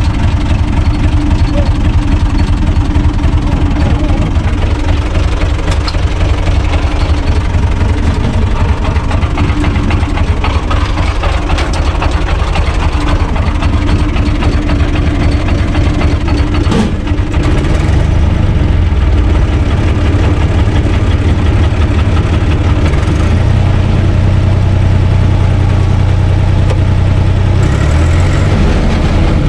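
U445 tractor's four-cylinder diesel engine running steadily, heard from inside the cab. There is a sharp knock about 17 seconds in, after which the engine's low note becomes heavier and louder.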